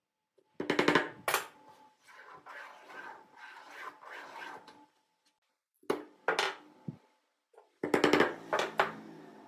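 A claw hammer tapping a nail through a wooden ruler into a wooden board in quick runs of light strikes, under a second in and again near the end. Between them, a pen scrapes across the wood as the nail-pivoted ruler is swung round to draw a circle, and a couple of separate knocks come about two thirds of the way through.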